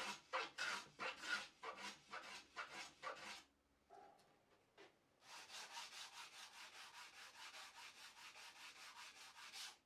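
Hand sanding: a sanding block rubbed back and forth along the edge of a wooden box lid. It starts with about ten short, uneven strokes, pauses for a second or two, then goes into quick, steady strokes.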